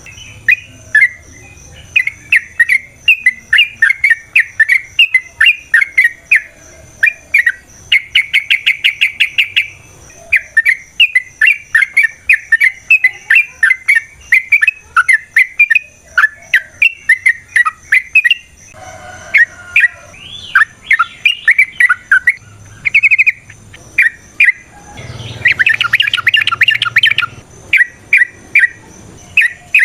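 Yellow-vented bulbul singing long, rapid chattering phrases of sharp bubbly notes, broken twice by dense rattling trills.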